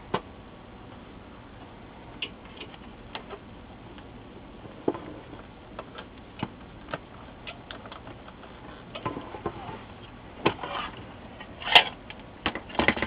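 Irregular small clicks and knocks of a monitor's circuit boards, cable connector and metal RF shield being handled and plugged together, with some rustling and a louder knock near the end as the assembly is set down.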